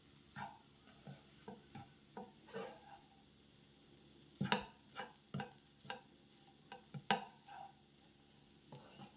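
A spatula stirring food in a pan, knocking and scraping against it in a run of irregular taps, two louder ones about four and a half and seven seconds in.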